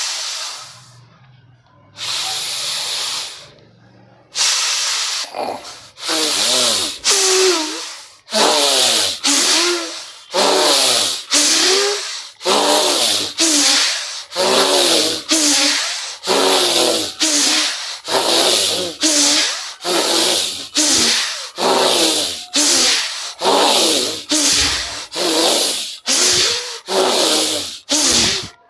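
A man's deep, forceful pranayama breathing: strong, hissing inhales and exhales. A few slower breaths come first, then about one per second until the end.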